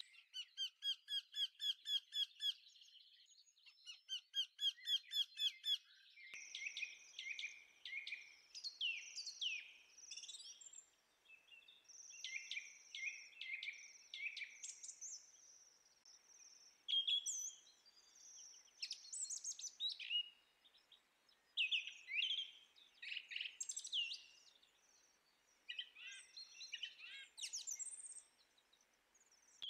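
Birds chirping and singing. For the first six seconds there is a fast, evenly repeated trill, and after that a busy mix of short chirps and whistles.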